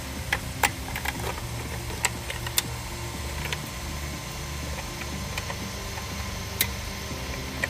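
Scattered short plastic clicks and rattles of wiring-harness connectors being handled and plugged back in, over a steady low hum.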